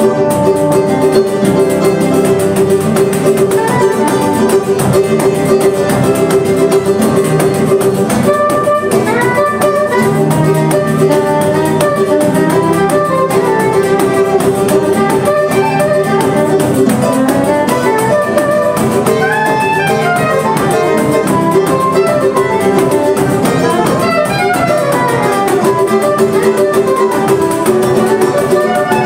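Brazilian choro quartet playing a baião: soprano saxophone carries a fast melody over acoustic guitar, cavaquinho and pandeiro.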